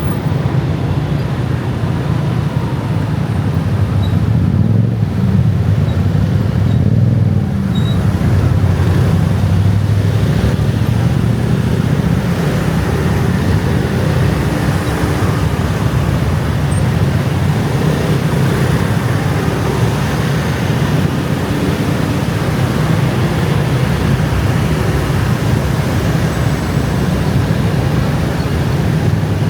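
Dense scooter and motorbike traffic: a steady drone of many small engines and tyres.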